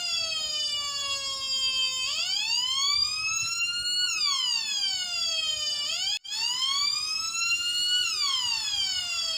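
Homemade two-555-timer siren circuit sounding through an 8-ohm speaker: a buzzy electronic tone wailing slowly up and down, each rise or fall taking about two seconds. It cuts out for a moment a little past halfway, then starts wailing again.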